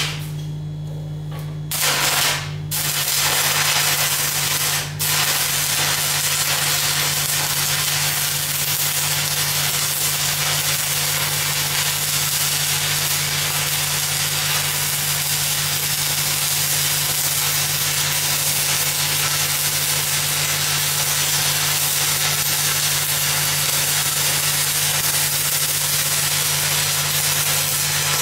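Stick-welding arc on steel pipe with a cellulose-coated 6010/8010 electrode. The arc strikes with a couple of short crackles about two seconds in, then burns with a steady crackling hiss, breaking off briefly around five seconds in before it carries on. A steady low hum runs underneath.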